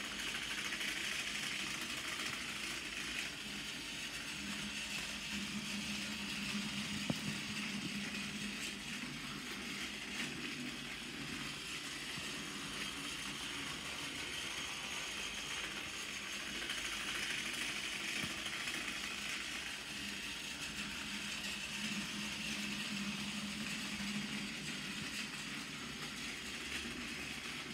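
Battery-powered Tomy Toby tram engine toy train running on plastic track: a steady whir of its small electric motor and gears, growing louder and softer twice as it circles the oval.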